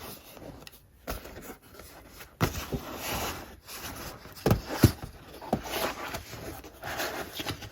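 Cardboard packaging rustling and scraping as the contents are worked out of a tight box, with a few sharp knocks, two of them close together about halfway through.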